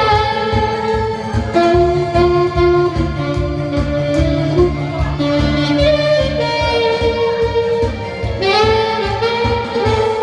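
Saxophone playing a song melody in long held notes over an accompaniment with a steady low beat.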